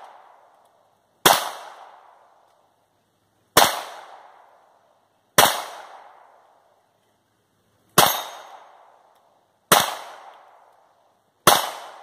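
Browning Buck Mark .22 LR semi-automatic pistol firing six single shots, unevenly spaced about two seconds apart, each crack followed by a short echo tail.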